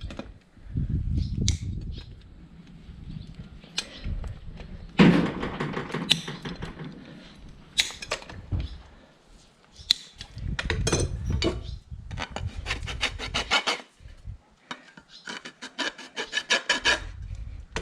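Farrier's rasp filing a horse's hoof in runs of quick, even strokes with short pauses between them.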